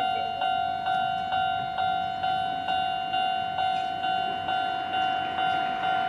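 Japanese railway level-crossing alarm ringing: an electronic bell striking evenly about twice a second, each stroke fading before the next. It is the warning that a train is approaching the crossing.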